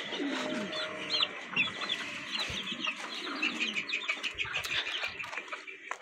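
Desi chickens clucking and calling, over a constant chatter of short high-pitched bird chirps.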